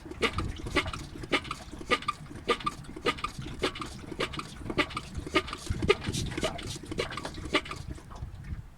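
Suspension of a 2013 Hyundai Elantra creaking and knocking in an even rhythm, a little under twice a second, a sign of a worn suspension part.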